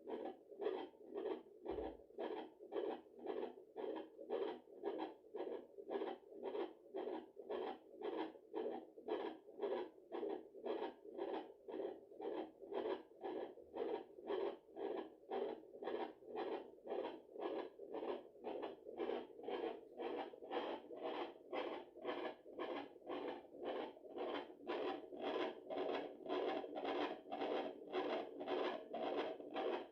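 Heartbeat picked up by a handheld fetal doppler on a pregnant belly: an even run of whooshing pulses, about two a second.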